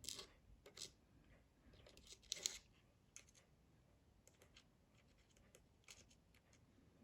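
Faint scattered clicks and light scrapes of small parts and tools being handled during an iPhone 5S reassembly, with a louder cluster about two and a half seconds in.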